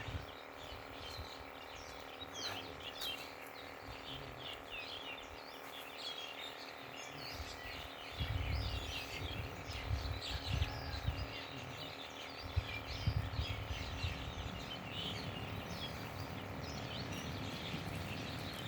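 Small birds chirping and twittering continuously in a dense chorus. Low rumbling noise comes in about eight seconds in and again around twelve seconds.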